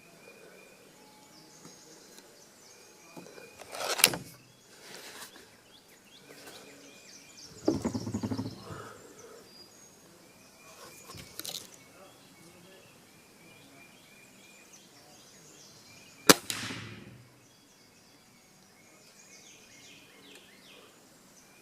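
Two sharp pellet-rifle shots about twelve seconds apart, with a duller clunking sound between them. Birds chirp in the background.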